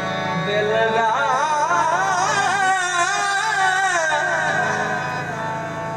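Harmonium sounding steady held notes while a man sings over it, a long ornamented vocal line that wavers and slides up and down from about a second in until near the end.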